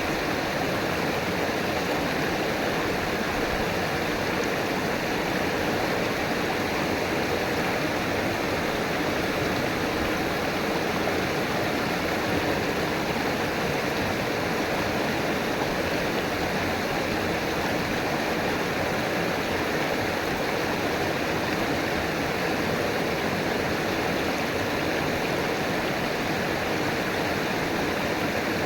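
River water flowing and rushing steadily, an even, unchanging noise with no single splashes standing out.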